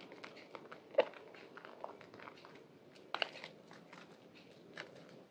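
Soaked white bar soap's thick lather and a soaked sponge squeezed by hand in a basin of soapy water: wet squelching with a dense crackle of popping bubbles, and sharper pops about a second in and again just after three seconds.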